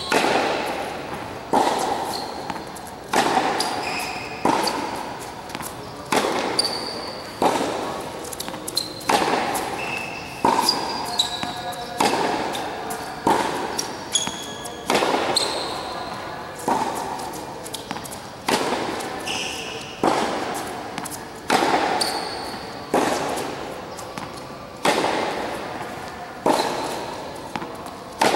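Tennis racquets striking the ball in a steady groundstroke rally, a sharp hit about every second and a half, each echoing in a large indoor hall. Short high squeaks come between some of the hits.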